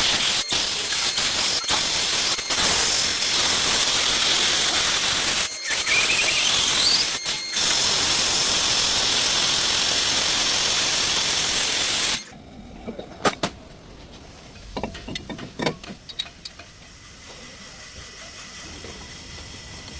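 Loud, steady hiss of a pressurised jet, broken twice by short pauses with a faint rising whistle between them. It cuts off suddenly about twelve seconds in, leaving quieter clicks and taps.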